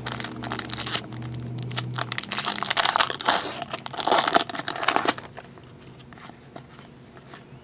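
Plastic trading-card pack wrapper crinkling and tearing as it is handled and opened, in dense crackly bursts for about five seconds, then fading to faint handling noise.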